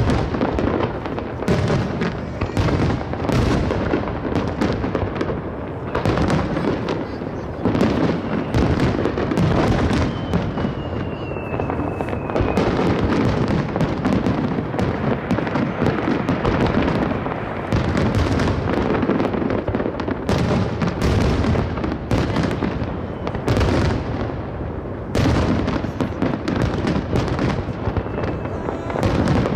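Fireworks display: a dense, continuous barrage of aerial shell bursts and crackle, the reports overlapping with hardly a gap. A brief falling whistle sounds about ten seconds in.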